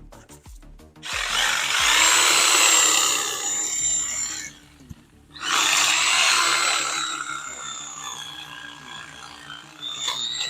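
DeWalt corded reciprocating saw cutting through bush branches, with a high motor whine, in two runs: it starts about a second in, stops briefly near the middle, then cuts again and eases off toward the end. Faint background music plays underneath.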